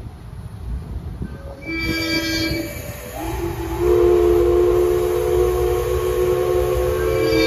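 Steam whistle of the SL Ginga's C58 steam locomotive: a short toot about two seconds in, then a long blast that slides up in pitch as it opens and holds a steady chord of several tones.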